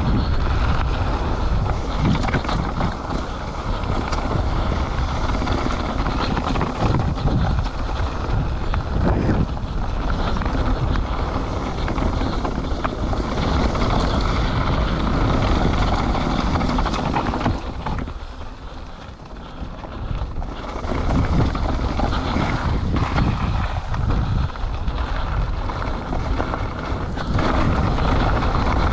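Mountain bike descending a downhill trail at speed: wind buffeting the microphone over tyres rolling on dirt, with occasional knocks from the bike over rough ground. The noise eases briefly about two-thirds of the way through, then comes back.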